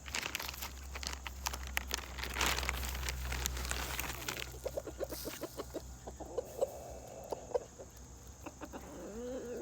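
Hens pecking at black soldier fly larvae on a concrete drive: a patter of sharp taps through the first half, then short low clucks in quick runs from about halfway on.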